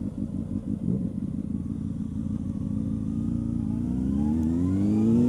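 2000 Honda CB600F Hornet's inline-four engine running at low revs through a junction turn, then accelerating from about three seconds in, its note rising steadily in pitch and growing louder.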